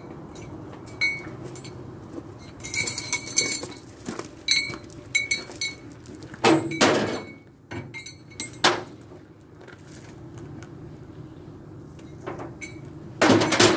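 Metal clinking and clanking: a string of sharp knocks and rattles, some with a brief ringing tone, over a steady low hum. The loudest clanks come about halfway through and again near the end.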